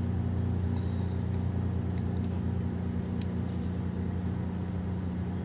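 Steady low background hum, with a couple of faint light clicks from small phone parts being handled about two and three seconds in.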